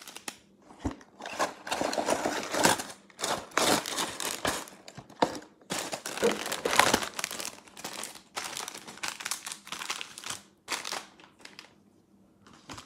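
Clear plastic bags of building-brick pieces crinkling as they are handled and shuffled, in irregular rustling bursts that die away near the end.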